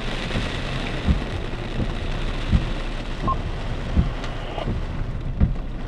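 Steady hiss of heavy rain and wind in a severe thunderstorm, with a soft low thump repeating about every one and a half seconds.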